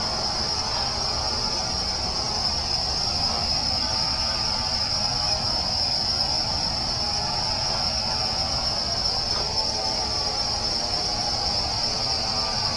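A dense chorus of crickets: a steady, unbroken high-pitched trill, over a constant low rushing background.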